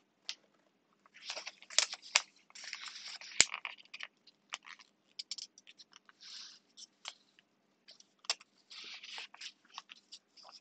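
A sheet of copy paper handled and folded by hand into an origami shape: irregular rustling and crinkling with short scratchy swipes as creases are pressed. There are sharp crackles, the sharpest a little past three seconds in.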